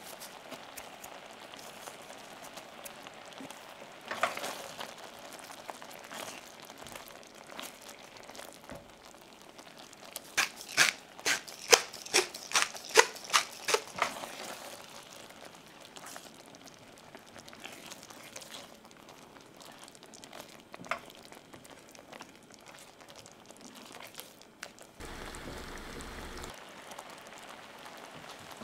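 A spatula stirring a creamy sauce in a stainless steel pan, knocking and scraping against the pan in a quick run of about a dozen strokes from about ten to fourteen seconds in, over a faint steady crackle from the pan.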